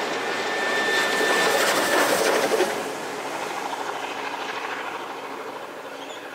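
Steam-hauled passenger train with steam locomotive 3237 passing close by and drawing away, its wheels clattering over the rails. The sound is loudest for the first three seconds, then fades steadily as the train recedes, with a thin high tone through the first two seconds.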